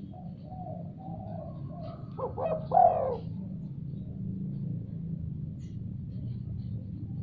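Spotted dove (tekukur) cooing: soft coos at first, then a louder run of coos about two to three seconds in, over a steady low hum.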